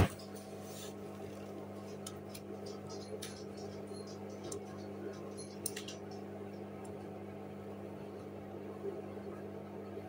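Hoover front-loading washing machine running, its motor giving a steady hum as the drum turns wet laundry, with small ticks and splashes from the load. A sharp click comes right at the start.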